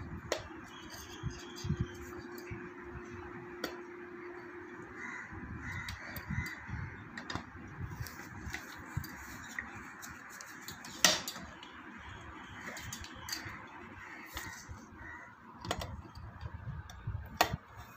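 Pliers and the metal and plastic parts of a bicycle floor pump clicking and knocking as the new hose fitting is gripped and tightened, with a sharper click about eleven seconds in.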